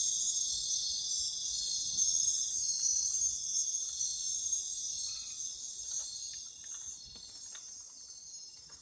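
Night insects, cricket-like, chorusing in a dense, steady, high-pitched trill that fades away over the last few seconds, with a few faint ticks near the end.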